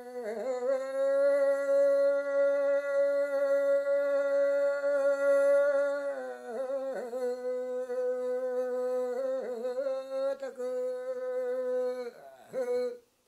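A single unaccompanied voice singing a Yami (Tao) fishing song in free-rhythm, recitative style. It holds one long steady note for about six seconds, then moves into a wavering, ornamented line with short breaks, and the phrase stops just before the end.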